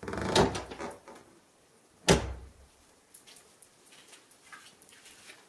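A door moving with a creak for about a second, then shutting with a sharp bang about two seconds in, the loudest sound here, followed by a few faint soft ticks.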